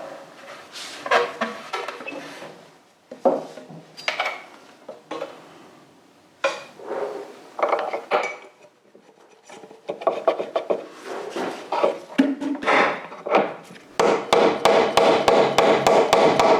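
Hand work on motorcycle fork parts: irregular rubbing, scraping and knocking of metal parts and tools. Near the end comes a loud, dense run of rapid clicks.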